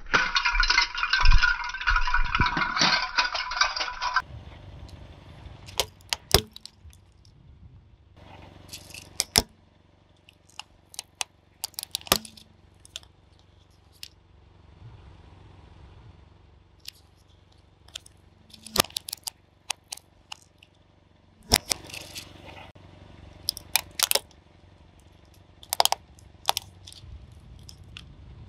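Hard objects crushed under a car tyre: a dense crackling crunch for about four seconds, then scattered sharp clicks and snaps, some in quick clusters, over a low steady hum.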